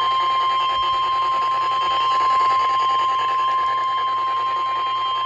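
NOAA Weather Radio warning alarm tone: one steady, loud high tone over radio hiss. It is the 1050 Hz alert tone that signals a warning is about to be read.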